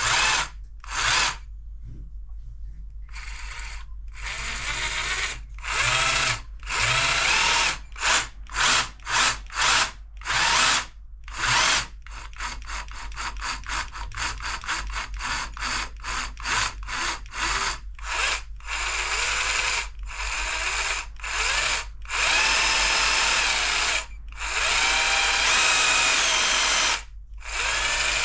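Bosch GST 18V-LI cordless jigsaw motor, its housing opened up, run on its battery in repeated trigger pulls. Each pull whines up to speed and winds down, with a string of quick stuttering blips in the middle and longer runs of a few seconds near the end.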